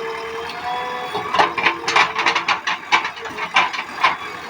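Backhoe loader working, with a steady whine for about the first second, then a rapid, irregular clatter of sharp mechanical knocks.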